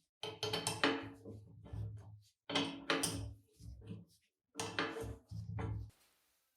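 Heavy cast-iron parts of an old sugar cane mill knocking and clanking together in a run of strikes over about six seconds, each with a short metallic ring at the same pitch.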